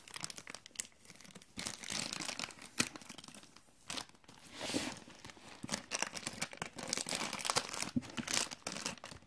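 A toy blind-bag wrapper and tissue paper crinkling and tearing as they are torn open by hand, in irregular bursts.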